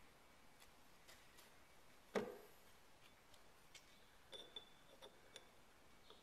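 Metal parts of a Kitagawa B206 power chuck being handled: a single clunk about two seconds in as a part is set down on the work table, then a few light metallic clinks, some with a brief ring.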